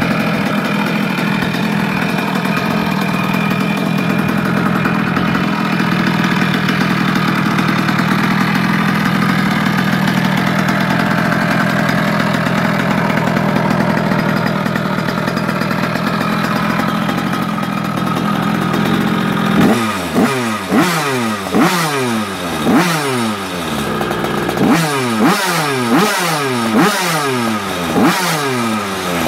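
Puch Monza moped's two-stroke single-cylinder engine, with a Gilardoni 74cc cylinder kit and race exhaust, idling steadily for about twenty seconds. It is then blipped in a string of quick revs, about ten sharp rises and falls in pitch, roughly one a second.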